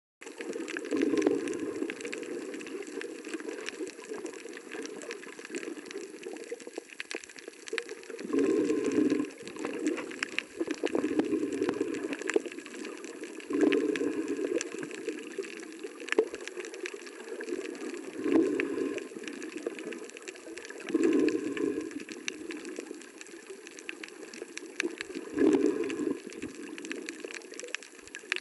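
Underwater sound through a submerged camera: a steady low, muffled rush of water that swells louder every few seconds, with scattered faint clicks throughout.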